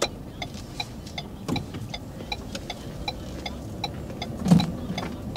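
Car turn-signal indicator ticking evenly, about two and a half ticks a second, over the low hum of the car inside the cabin. A single dull thump comes about four and a half seconds in.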